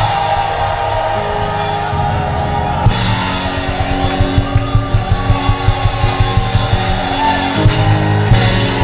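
Church praise band playing upbeat music with held guitar or keyboard chords, and a fast drum-kit beat that comes in about three seconds in.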